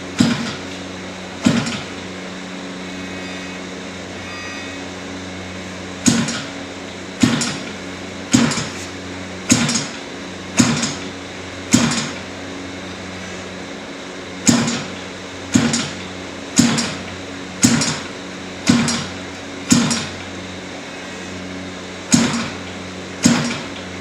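Sharp knocks with a short ringing decay, about one a second in runs of five or six with pauses between, over a steady low hum.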